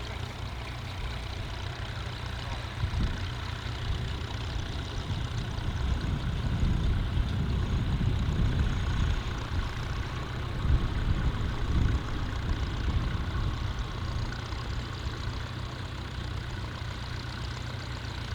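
Vintage farm tractor engine running at work, growing louder around the middle and easing off again.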